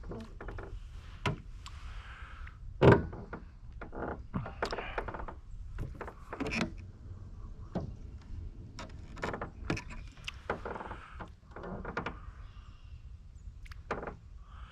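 A run of irregular knocks, clicks and clunks, with one loud thump about three seconds in.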